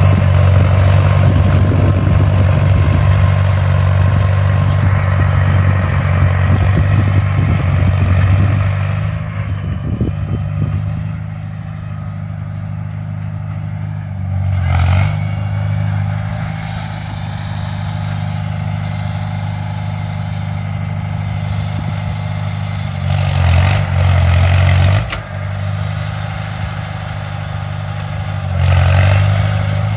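International 140 tractor engine running steadily. It is louder for the first nine seconds or so, then settles lower, with brief surges in engine speed around the middle, about two-thirds of the way through, and near the end.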